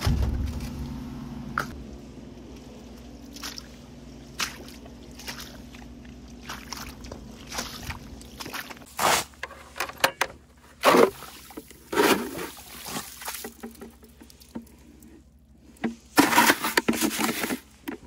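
Water sloshing and splashing in a plastic bucket as it is picked up and carried, in irregular bursts that are loudest in the second half. A low steady hum fades out during the first few seconds.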